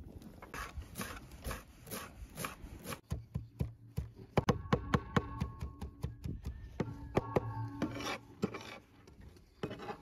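Hand food-preparation sounds with utensils: rhythmic strokes at about two a second, then from about three seconds in a quicker, uneven run of sharp clicks and taps with a faint ringing tone, fading near the end.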